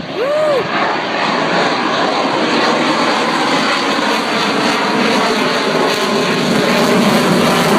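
Blue Angels F/A-18 Hornet jet flying past, its twin jet engines making a loud, steady rush of noise that builds slightly near the end. A person shouts "Woo!" at the start.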